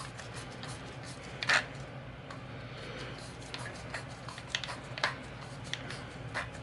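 Scattered light clicks and taps of small metal tools and scope-ring parts being handled, the sharpest about one and a half and five seconds in, over a steady low hum.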